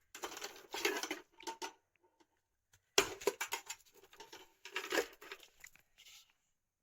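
Rustling, crinkling handling noise with small clicks, in two main bursts, the sharpest starting about three seconds in.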